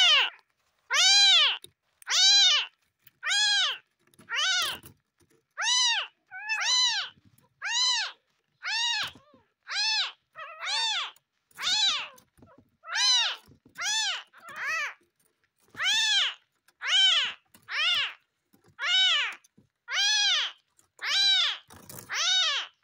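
Orphaned newborn kitten mewing over and over: short, high-pitched cries that rise and fall in pitch, about one a second.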